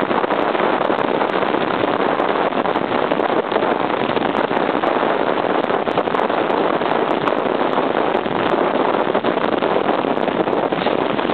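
Steady wind rush on the microphone mixed with the running drone of a 1978 Honda CB750's air-cooled inline-four engine, held at an even cruising speed.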